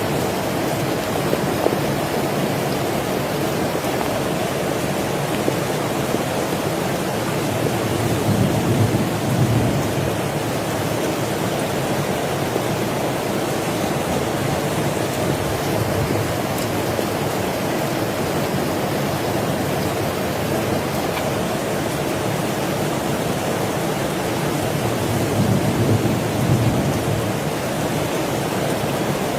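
Heavy rain falling steadily, with two brief low swells in loudness, one about a third of the way in and one near the end.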